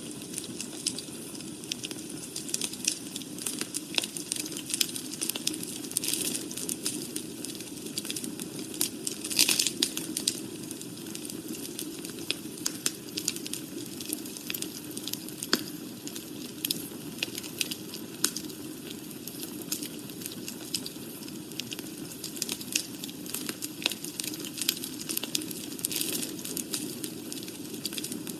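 Wood fire burning in a fireplace, crackling with frequent sharp pops and snaps of varying strength over a steady low background noise, with a denser flurry of pops about nine to ten seconds in.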